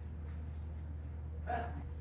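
A brief mouth or voice sound from the person eating, about one and a half seconds in, over a steady low hum.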